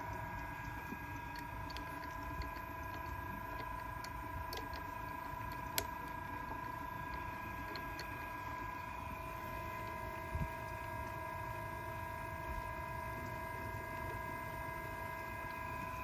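Emco Maximat F1P milling machine running at a steady spindle speed: a steady whine of several held pitches, with a few faint ticks and one sharper click about six seconds in.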